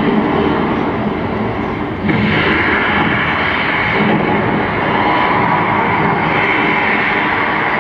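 Steady, loud roar of the Mount Prometheus volcano eruption effect, growing brighter and a little louder about two seconds in.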